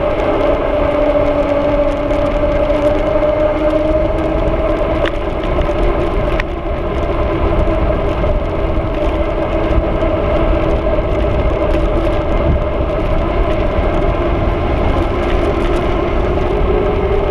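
Bicycle rolling fast on asphalt, its tyres giving a steady hum that drifts slightly in pitch with speed, over low wind rumble on the camera microphone.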